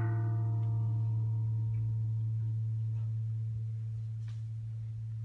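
A bell struck once rings out and slowly fades over a few seconds, its higher tones dying away first. A steady low hum runs underneath.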